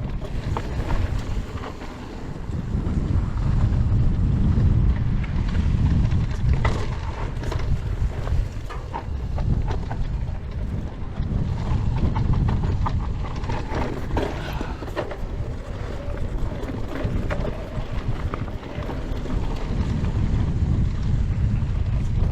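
Wind buffeting the camera microphone during a fast mountain-bike descent, with tyres running over dirt and scattered clicks and knocks from the bike rattling over rough ground.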